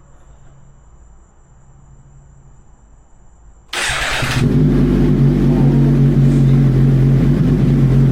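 2024 Suzuki GSX-R1000R inline-four engine with an Arrow Pro Race titanium slip-on exhaust, cranked and catching suddenly about three and a half seconds in, then idling steadily and loudly.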